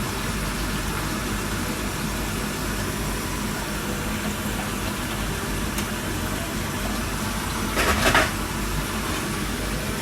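A steady mechanical hum with a hiss, with a brief louder noisy burst about eight seconds in.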